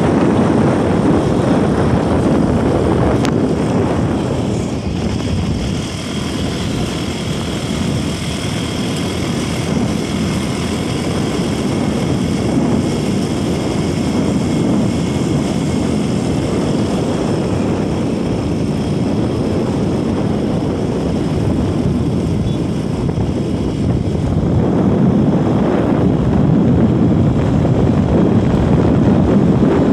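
Motorcycle on the move: its engine running under a heavy rush of wind over the microphone, easing off a little about five seconds in and growing louder again near the end.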